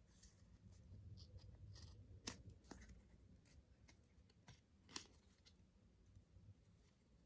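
Faint handling of small packaging: light rustles and scattered clicks, with two sharper snaps about two seconds and five seconds in, as a wrapped photocard is opened.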